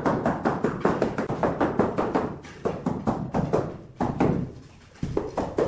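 Rubber mallet tapping rapidly on a large ceramic floor tile, about six blows a second, bedding the tile down into wet mortar. The tapping breaks off briefly twice.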